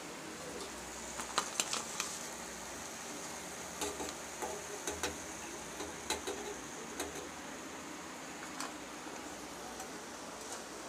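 Light clinks and taps of a steel perforated frying spoon against the pan and a plate as fried lentil fritters are lifted out and tipped onto the plate, over a steady hiss of hot oil frying.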